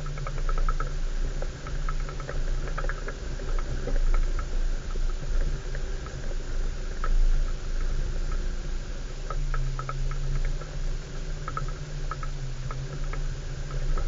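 A 4x4's engine running at low speed off-road with a steady low drone, overlaid by irregular clusters of short clicking rattles as the vehicle jolts over a rough, rutted track.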